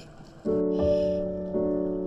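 Background music: keyboard chords come in about half a second in and are struck again about once a second, each held and slowly fading.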